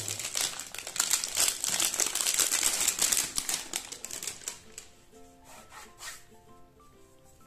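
Thin plastic protective wrap crinkling and crackling as it is pulled off a device by hand, loud for about four and a half seconds. Then it stops and soft background music with plucked notes is left.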